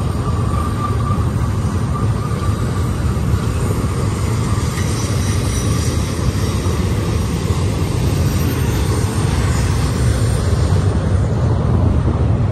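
Double-stack intermodal freight cars rolling past on steel wheels: a steady, continuous rumble of wheels on rail. A faint high squeal fades out in the first couple of seconds.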